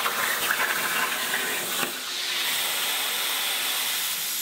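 CNC plasma cutter on an Avid CNC Pro4896 table cutting sheet metal: the torch gives a steady hiss that dips briefly about two seconds in.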